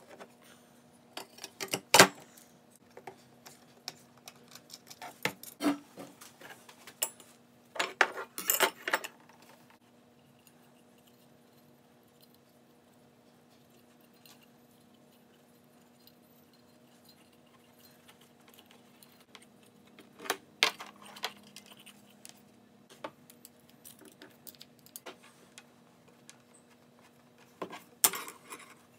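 Brass lamp parts clinking and clattering as they are handled and set down on a workbench: scattered sharp clinks, a busy burst about eight seconds in, a quiet stretch in the middle, and more clatter near the end. A faint steady hum runs underneath.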